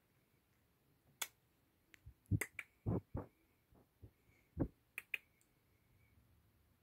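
A run of short, uneven sharp clicks, some with a dull knock under them, bunched in the middle.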